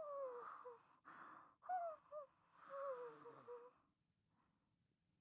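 A cartoon character's voice giving three breathy sighs, each falling in pitch, one after another.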